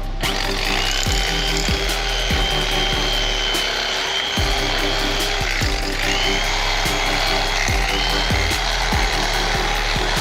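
Handheld power tool running steadily with a high whine. It eases off briefly about halfway through, then runs on. Background music with a heavy bass beat plays underneath.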